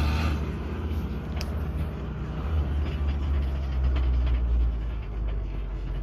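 Mercedes-Benz W123 300D's five-cylinder diesel engine running with a steady low drone and a few faint ticks, the noises its owner calls terrible.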